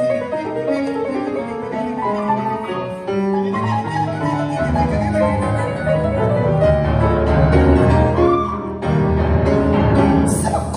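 Grand piano played live in a jazz performance: dense runs and chords that grow heavier and louder in the bass from about four seconds in. A bright, high rattle comes in just before the end.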